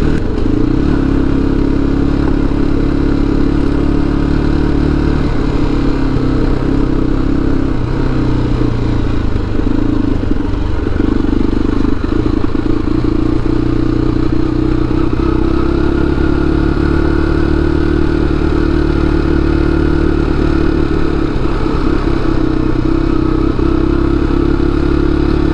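Motorcycle engine running steadily while riding at low speed, its pitch shifting slightly with the throttle about halfway through.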